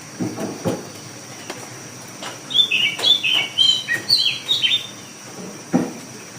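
A bird chirping, a quick run of short falling chirps starting about two seconds in and lasting a couple of seconds. A few soft low thumps come before and after.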